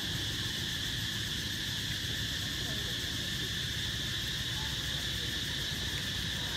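Steady chorus of insects: a continuous high buzzing trill that holds unchanged throughout, over a low background rumble.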